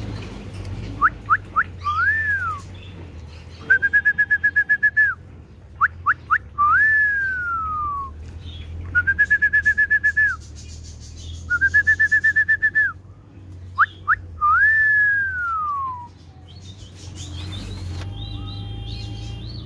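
Clear repeated whistling: three phrases of two or three quick rising notes, each ending in a long slide that rises and then falls, alternating with three fast warbling trills held on one pitch.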